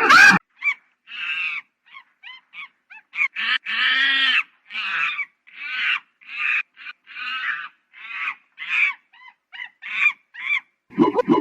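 A monkey giving a string of short, high-pitched calls, about a dozen with brief gaps between them, one longer and louder call about four seconds in.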